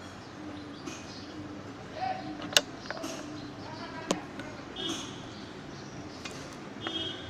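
Two sharp clicks, about a second and a half apart, from a metal prank shocking pen being handled and its push button pressed. Faint voices and bird calls sit behind them.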